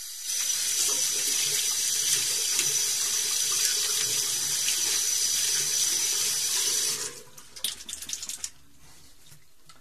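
Water running from a tap into a sink while soap is washed off hands, a steady splashing hiss that stops when the tap is turned off about seven seconds in.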